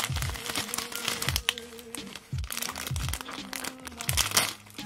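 Bubble wrap and a clear plastic bag crinkling as they are handled and pulled open, over background music with a steady beat.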